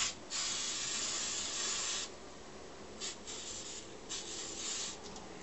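Aerosol can of spray adhesive hissing as glue is sprayed onto a bellows liner panel: one long spray of nearly two seconds, then shorter bursts a second or so later.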